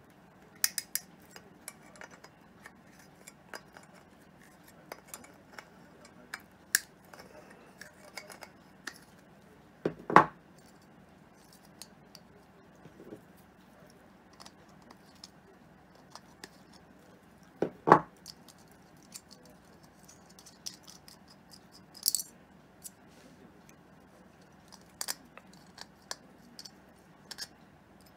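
Pliers clicking and clinking against the bolt and chrome shell on the back of a round motorcycle mirror as it is worked loose, in scattered small metallic taps. Two louder knocks come about ten and eighteen seconds in.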